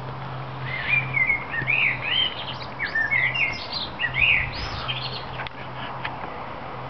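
Garden songbird singing, a quick run of chirping, up-and-down phrases for about four seconds, then stopping. A steady low hum runs underneath.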